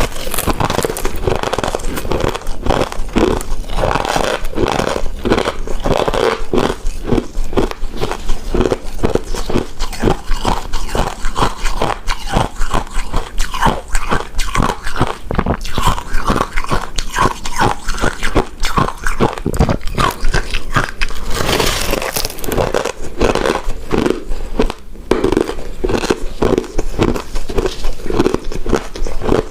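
Close-miked biting and chewing of a soft rice cake coated in shredded coconut, a dense, irregular run of small mouth clicks and squelches.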